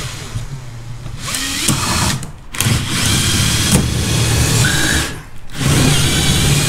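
Power drill boring a hole through a brick wall, running in long bursts and stopping briefly twice.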